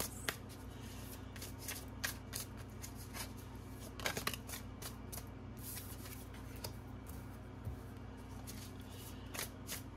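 Tarot deck handled and shuffled by hand: irregular soft flicks and riffles of the cards, thickest about four seconds in, as a card is laid down, over a steady low hum.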